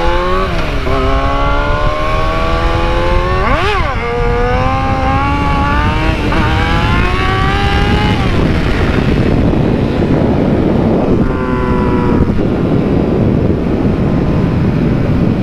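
Yamaha YZF-R6's 600 cc inline-four engine accelerating hard through the gears, its pitch climbing and dropping back at each upshift, with a brief sharp rev spike about four seconds in. From about halfway the engine fades under steady wind rush on the helmet microphone, and comes back briefly once more.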